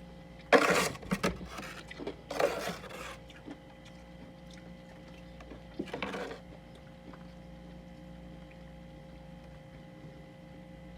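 Freezer frost crunching in three short, rough bursts, about half a second, two seconds and six seconds in, over a steady low hum.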